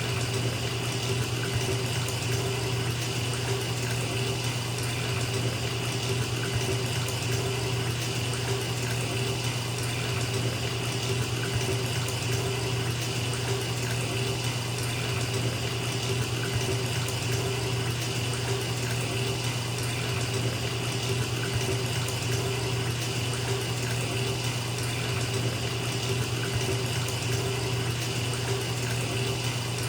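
Bathtub filling from the tap: water pouring steadily into the tub, an even, unbroken rush with a low rumble.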